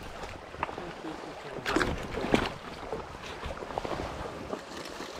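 River water running, with a few short sharp noises about two seconds in.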